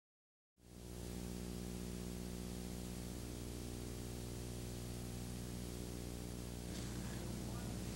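Steady hiss and electrical hum from an old videotape recording's soundtrack, cutting in suddenly under a second in after dead silence. The hum is a low buzz with many overtones.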